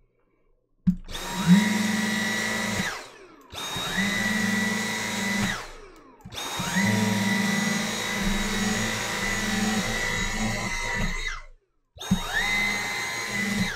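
Dyson cordless handheld vacuum switched on and off four times, starting about a second in. Each time the motor whine spins up to a steady high pitch, then winds down as the trigger is released. The third run is the longest, about five seconds.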